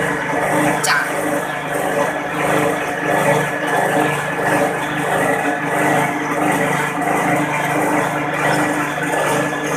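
Metal lathe running steadily while its cutting tool turns down the head of a stainless steel bolt, a continuous machine drone with a thin high whine throughout.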